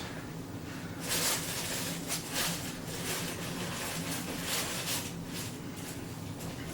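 Packaging rustling as a statue part is unwrapped and handled, in a series of irregular bursts over a few seconds. A faint steady low hum sits underneath.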